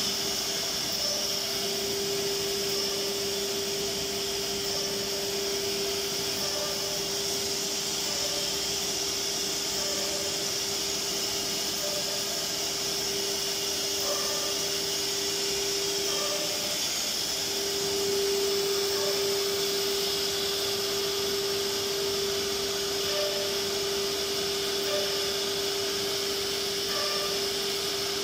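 Pneumatic four-spindle CNC router running, with a steady whine from its spindle over the rushing hiss of its dust extraction. The whine breaks off briefly and wavers about seventeen seconds in, then carries on.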